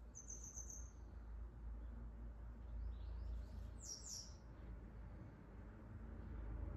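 Barn swallows twittering: a short run of high chirps at the start, a louder burst of quick falling chirps about three to four seconds in, and another run of chirps at the end, over a steady low rumble.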